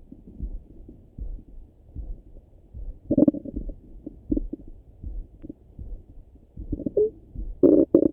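Stomach and bowel gurgles heard through a Littmann stethoscope held on the belly, muffled and deep. There is a gurgle about three seconds in, another a second later, a short squeaky gurgle around seven seconds, and the loudest rumble near the end. Faint regular low thuds run underneath.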